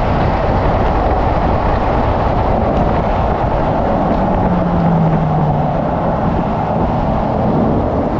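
Loud, steady wind and road rush from a car lapping a racetrack, with its engine running underneath, as it slows from about 75 to 35 mph for a slow corner. A short low engine drone sounds about halfway through.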